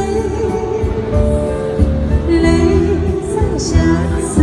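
A woman singing a Chinese pop song into a microphone over a recorded backing track, both amplified through a street PA speaker, with long held notes and vibrato.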